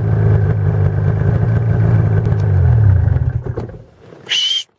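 Snowmobile engine running steadily, then slowing with a falling pitch and cutting off a little over three seconds in. A brief high squeak sounds just before the end.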